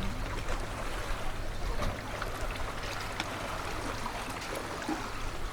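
Steady wash of seawater moving and sloshing, with a low rumble underneath and a few faint ticks.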